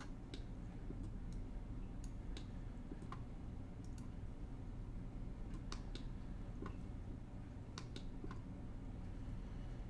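Computer mouse clicking at irregular intervals, sometimes in quick pairs, over a steady low hum.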